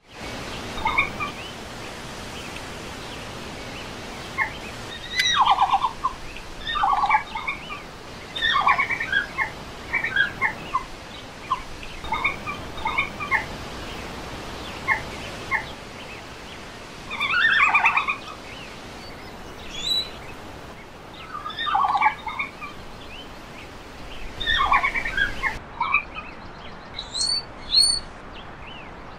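Red panda vocalizing: repeated short bursts of calls every second or few over a steady background hiss. About 25 seconds in the background changes and a few short, high, rising squeaks follow.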